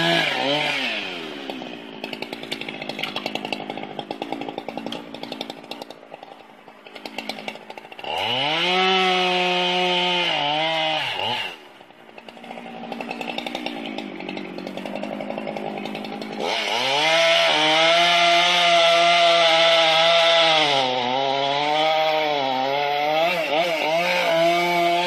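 Chainsaw idling unevenly between cuts, then revving up to high speed in two long spells. Its pitch dips and recovers several times near the end as the chain bites into the wood.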